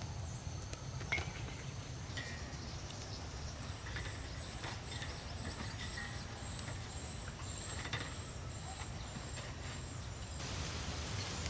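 Steady high insect buzzing over a low background rumble, with scattered small clicks as chili stems are pulled off and chilies dropped onto a steel tray.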